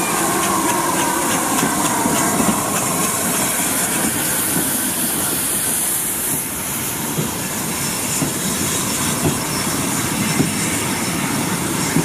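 Steam tank locomotive, a USA-class 0-6-0T running as NCB No 35, passing close with a train of wagons: a steady loud hiss of steam over the rumble and clatter of the wheels, with scattered knocks as the wagons roll by.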